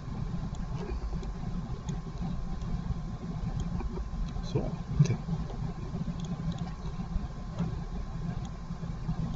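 Steady low hum with a light hiss of background noise, and a few faint computer-mouse clicks scattered through it.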